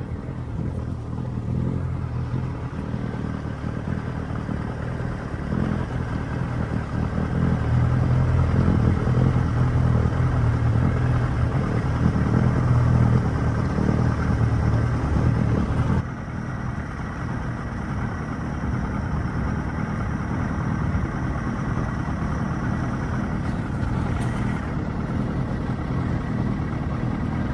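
Old two-stroke outboard motor running steadily, pushing a small skiff. The engine gets louder about eight seconds in, then drops sharply in level about halfway through.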